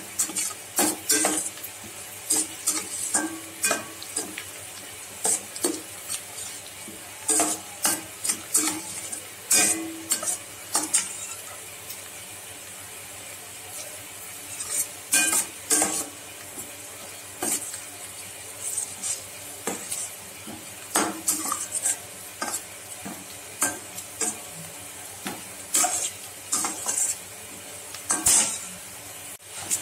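Chopped onions sizzling in hot oil in a stainless steel kadhai, while a perforated metal spatula scrapes and clinks against the pan in irregular strokes as they are stirred. Halfway through, the stirring stops for a few seconds and only the sizzle is left.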